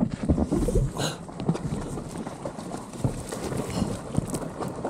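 Wind buffeting the microphone: an uneven low rumble with irregular thumps and no steady engine note.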